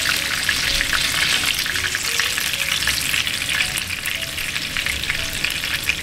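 Breadcrumb-coated bream fillets sizzling and crackling in shallow oil in a frying pan, a steady dense crackle with many small pops. The fillets have just been turned and their second side is frying over medium-high heat.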